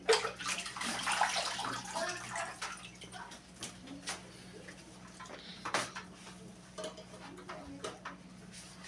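Water splashing and dripping as a wet dog is lifted out of a laundry tub, loudest in the first couple of seconds, then scattered light knocks and rustling of towel handling over a steady low hum.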